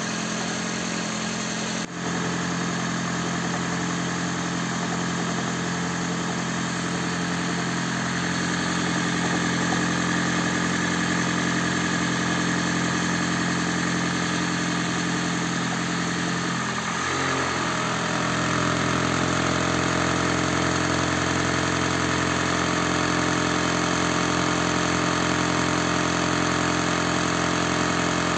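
Toyota Prius petrol engine running after a cold start, recorded close up under the bonnet. It has a rattle that the mechanic puts down to the flywheel damper, knocking as the engine misfires on worn-out injectors. The engine note changes in pitch about 17 seconds in and runs a little louder after.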